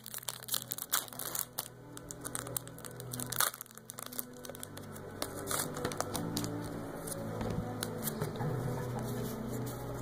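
Foil Pokémon booster pack wrapper crinkling as it is handled and torn open, busiest in the first half, with steady background music coming up underneath in the second half.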